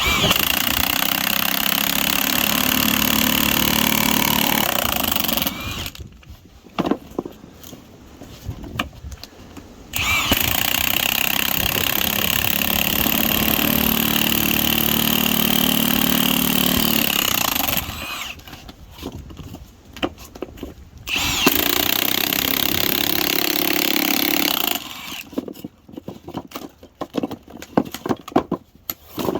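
Milwaukee M18 2767 high-torque impact wrench driving a spiral log-splitting screw bit into a wet sycamore stump, run in three long bursts. Scattered quieter clicks and knocks fill the pauses between the bursts.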